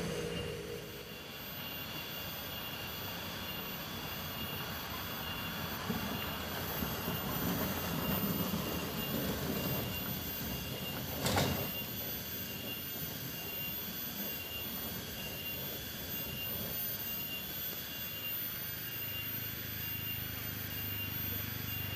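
A small pickup truck's engine passing and pulling away, swelling from about six seconds in and fading after about eleven seconds, over a steady high hiss. A single sharp knock comes about eleven seconds in.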